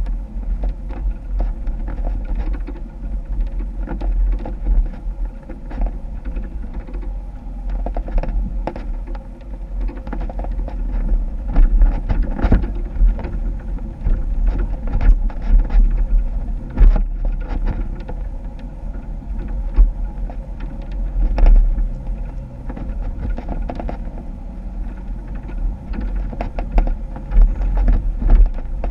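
Jeep engine running while it crawls over rough ground, with frequent sharp knocks and clunks from the vehicle bouncing over the terrain.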